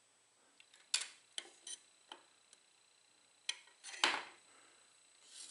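Knives clicking and knocking against each other and the knife block as they are slid into it and shifted in it: a scatter of short sharp clicks, loudest about four seconds in.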